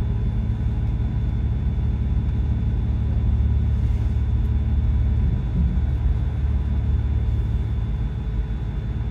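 Steady low rumble of a service bus driving, heard from inside the passenger cabin: engine and road noise, with a faint steady high whine.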